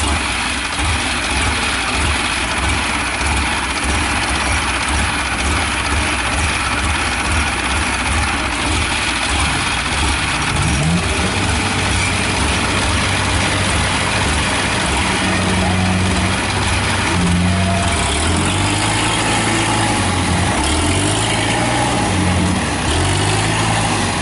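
Diesel engine of a harvesting machine bogged in deep mud, running hard and steady. From about ten seconds in it revs up and down repeatedly as the machine strains to pull free.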